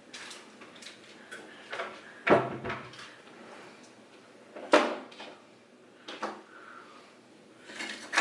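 Small objects being handled and put down on a hard surface, with two sharp knocks about two and five seconds in and fainter clicks between.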